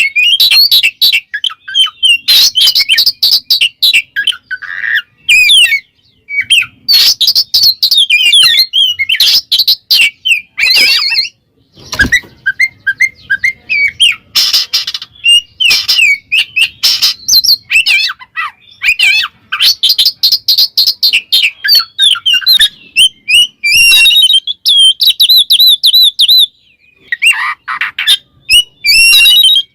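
Oriental magpie-robin (kacer) singing a loud, fast, varied song of whistled and chattering notes in the 'ngeplong' style, in runs of a few seconds with brief pauses. It is a territorial challenge song calling out a rival male.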